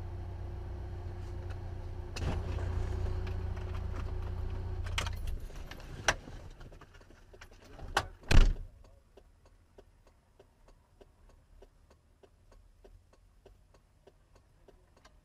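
Heard from inside a car: the engine runs with a low hum and stops about five seconds in. A few sharp clicks follow, and a car door slams shut about eight seconds in. After that there is faint, even ticking, about two a second.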